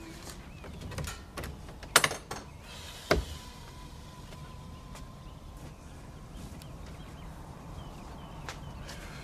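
A few sharp knocks and clatters, the loudest about two and three seconds in, followed by a faint steady high tone lasting a few seconds.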